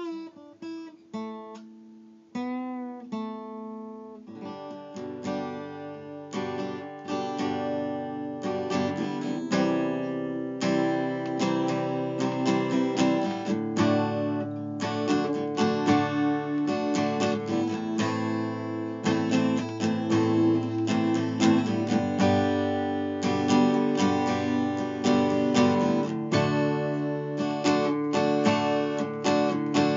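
Acoustic guitar played by hand. A few separate picked notes come first, then from about four seconds in the playing turns to continuous strummed and picked chords.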